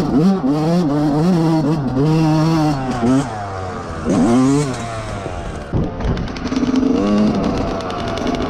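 Yamaha dirt bike engine revving up and down in repeated throttle blips while riding a rough dirt trail, with a sharp knock about six seconds in, then running more steadily.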